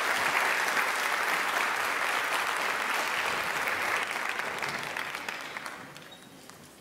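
Audience applauding, holding steady for about four seconds and then dying away.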